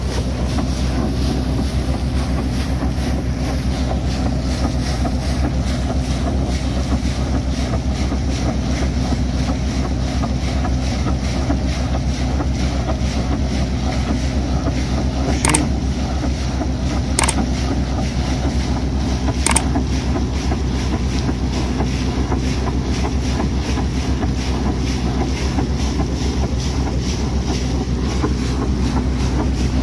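Borewell drilling rig's engine running steadily while a hard jet of water and spray rushes out of its discharge pipe. The freshly completed bore is being tested for water flow. Three short sharp clicks come about halfway through.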